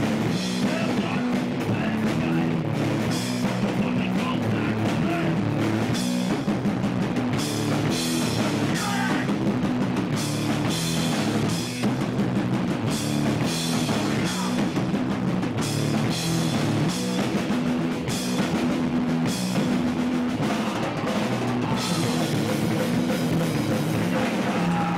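Hardcore punk band playing loud and fast: distorted electric guitar, bass guitar and a drum kit with frequent cymbal hits, running without a break.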